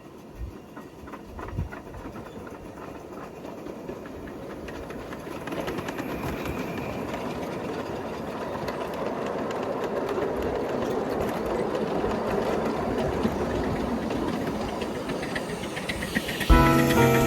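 A train running on rails, with a few knocks early on, then a rumble and clatter that grows steadily louder as it draws closer. Music starts just before the end.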